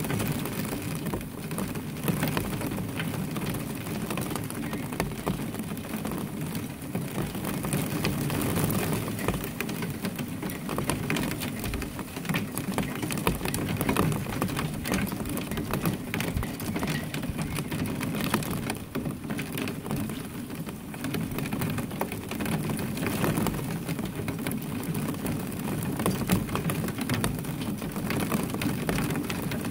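A steady rain shower, with countless drops pattering on a hard surface.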